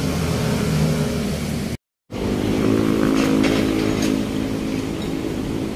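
Crawler bulldozer's diesel engine running steadily, with a few short knocks about a second after it cuts out briefly and resumes louder.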